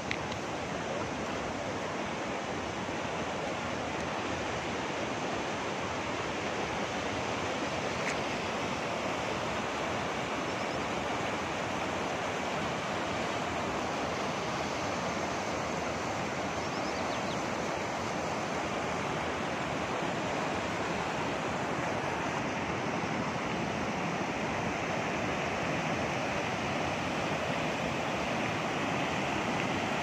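Fast water rushing down a concrete-lined channel: a steady, full rush that grows slightly louder toward the end.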